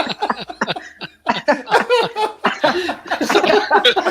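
People laughing hard, in repeated bursts.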